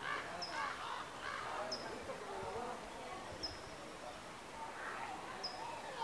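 Faint background chatter of people, with a bird giving one short high chirp about every one and a half to two seconds.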